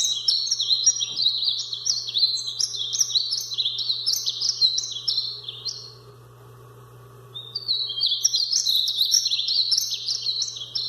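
Painted bunting singing: a rapid, high-pitched warble of short notes in two bouts, with a pause of over a second between them about halfway through.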